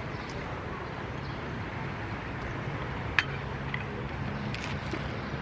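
Steady outdoor street background noise with a faint low hum, and a single sharp click about three seconds in.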